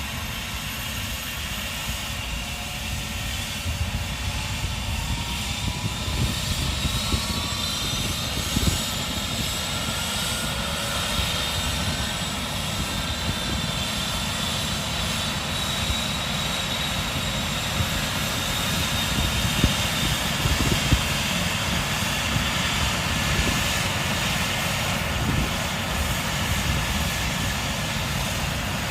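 Air ambulance helicopter running, its turbine whine rising in pitch about six to ten seconds in and then holding steady, over a dense low rumble of rotor and wind noise on the microphone.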